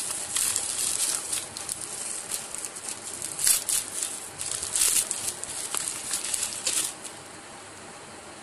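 Plastic packaging crinkling and crackling in irregular bursts as hands tear open a courier mailer and pull a watch box out of its silvery plastic pouch; the rustling stops near the end.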